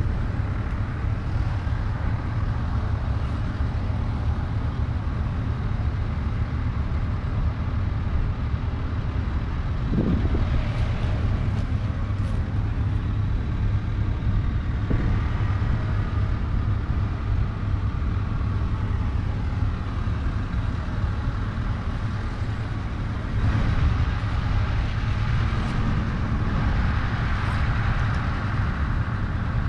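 John Deere 3650's 5.9-litre six-cylinder diesel engine idling steadily.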